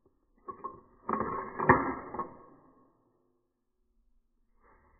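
Glock 43X pistol's slide being worked by hand: a light click, then metal sliding on metal and a sharp clack about a second and a half in, which rings briefly before fading.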